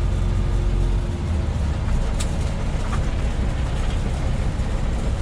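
Steady in-cab drone of a semi truck under way: diesel engine and tyre noise on a snow-covered road, with a brief click about two seconds in.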